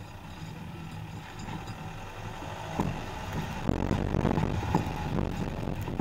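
Skoda Octavia TDI diesel running steadily with a low hum; from about three seconds in its tyres roll onto a dirt and gravel track, adding a louder rumble and many small knocks from stones and bumps.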